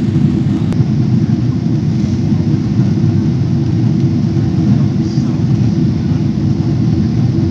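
Steady low rumble of engine and airflow noise inside an airliner cabin, heard at a window seat while the plane descends toward landing.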